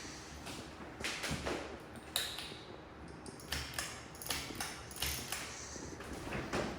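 Ceiling fan running with a faint low hum, under a string of irregular light clicks and knocks, about ten of them.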